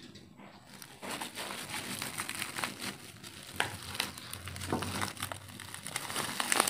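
Black plastic bubble wrap crinkling and crackling as it is pulled off by hand. It starts about a second in, and the loudest crackle comes at the very end.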